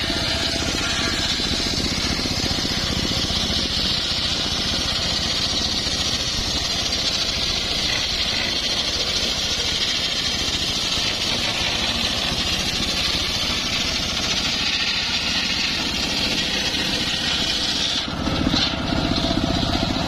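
Homemade engine-driven circular sawmill ripping an acacia slab lengthwise: the big blade's high, steady cutting noise over the engine running. Near the end the cutting noise drops away, leaving the engine and blade running.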